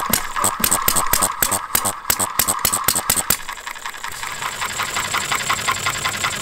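Model Farm Boy single-cylinder hit-and-miss engine running: a run of sharp, evenly spaced firing knocks, several a second, for about the first three seconds, then a quieter stretch of light, fast ticking as it coasts between firings.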